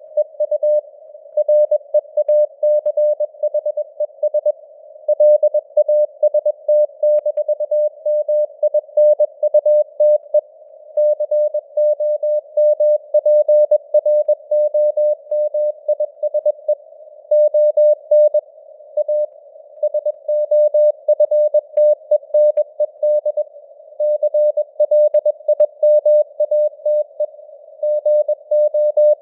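Morse code sent at 21 words per minute: a single mid-pitched tone keyed on and off in rapid dots and dashes, over a narrow band of simulated radio hiss, with the signal strength slowly fading up and down (QSB).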